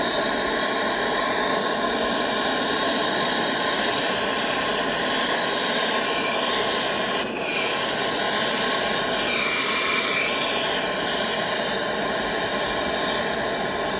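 Gas torch burning with a steady hiss as its flame plays on a melting dish of molten sterling silver.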